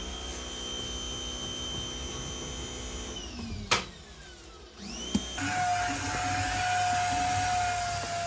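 High-pitched electric motor whining steadily. About three seconds in it winds down, there is a sharp click, and a second or so later it spins back up, running louder with a rushing sound.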